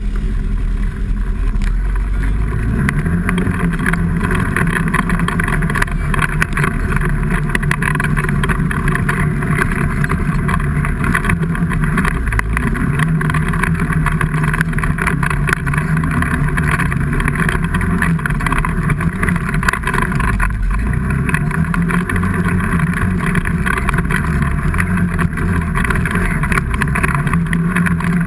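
A motor vehicle's engine running loudly and continuously. Its pitch rises about two seconds in, then wavers up and down under changing throttle.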